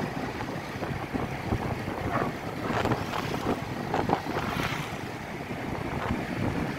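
Wind buffeting the microphone on a moving motorcycle: a steady rush of air and road noise with irregular gusty thumps.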